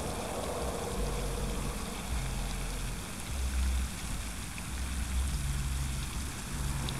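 Steady outdoor noise: an even hiss with a low rumble that comes and goes, and no speech.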